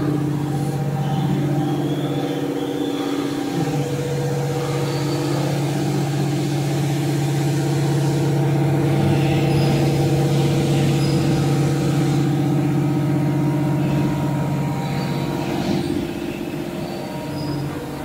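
Steady mechanical drone of factory machinery, a constant hum with several steady pitches that shift slightly now and then.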